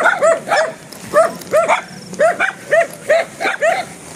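A dog barking over and over, a steady run of short barks about three a second.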